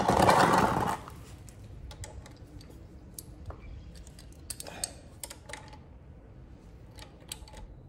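A brief loud scraping rustle, then a hand ratchet and socket clicking in short runs as the gearbox drain plug of a GY6 scooter engine is tightened.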